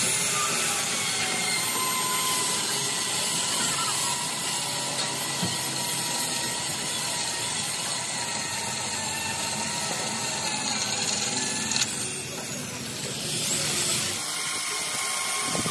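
A handheld electric power tool running steadily on the steel of a truck chassis frame, with a high whine that dips briefly about twelve seconds in.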